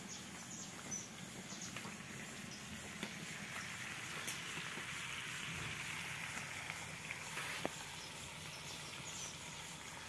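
Food cooking on a wood-fired stove: a steady sizzling, simmering hiss from the pots and pans, swelling a little around the middle, with scattered sharp crackles and pops from the burning wood.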